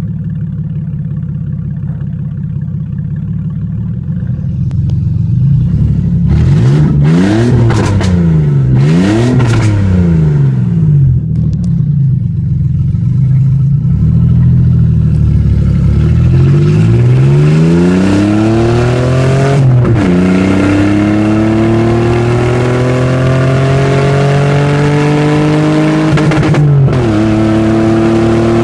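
Nissan 300ZX's naturally aspirated 3.0-litre V6 running loud on open headers. It idles steadily, is revved up and down twice, then accelerates with the pitch climbing and dropping sharply at two upshifts, heard from inside the car, and settles into a steady pull.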